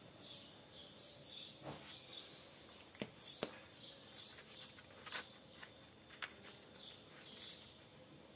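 Faint chirping of small birds, repeated all through. A few sharp clicks come from the plastic bike fender as it is handled, the two loudest close together about three seconds in.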